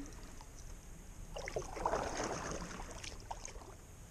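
Handling sounds of someone moving about in a kayak on the water: a couple of seconds of rustling and light knocks that start about a second in and die away before the end, over a faint low rumble.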